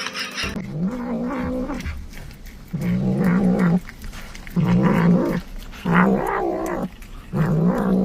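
A cat yowling: five drawn-out calls in a row, each lasting most of a second, with short pauses between them.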